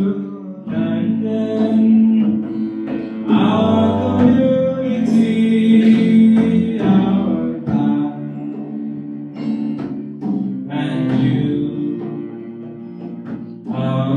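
A song sung to acoustic guitar accompaniment, with the guitar and sustained sung notes.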